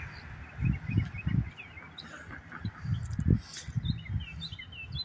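Small birds chirping in many short, quick calls, over low muffled thumps and rumbles on the microphone that are loudest about three seconds in.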